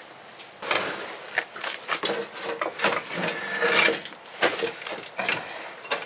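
Metal fuel tank of a 1987 GM pickup being lowered and dragged out from under the truck: a run of scrapes, knocks and clunks of sheet-metal tank against the floor jack and floor, starting about half a second in.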